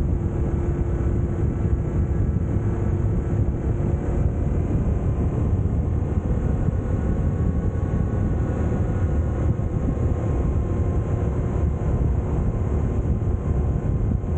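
A moving vehicle's running engine and travel noise, with a steady heavy low rumble of wind on the microphone. A faint engine tone shifts in pitch about four seconds in.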